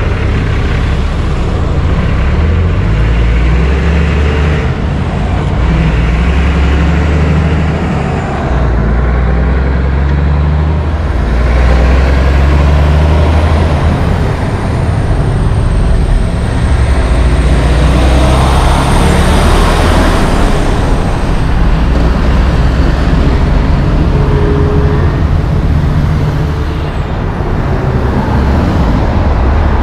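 Heavy diesel semi-trucks running and pulling through an intersection amid passing road traffic, with a deep, steady engine rumble. A vehicle passes close about two-thirds of the way through, the loudest moment.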